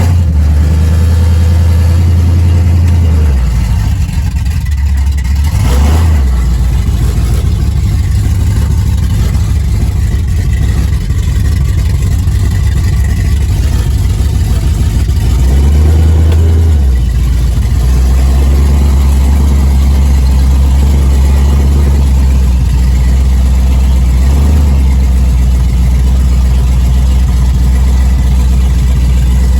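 1972 Plymouth Road Runner's 383 Magnum V8 running loud while driving, its Doug's headers not yet hooked up to the rest of the exhaust. The engine note changes about three seconds in and again around sixteen seconds.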